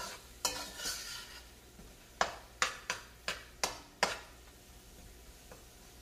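A metal spoon scraping and knocking against the side of a stainless steel pot while stirring thick curry. A quick run of six sharp taps starts about two seconds in, about three a second, and stops after about two seconds.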